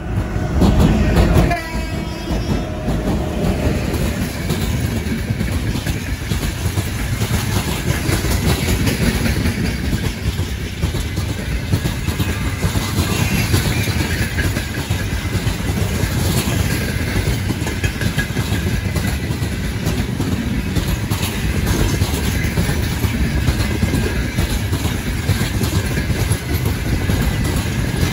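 A train passing, its wheels on the rails making a dense continuous rumble with fine rapid clatter. A locomotive horn sounds briefly near the start, lasting about two seconds.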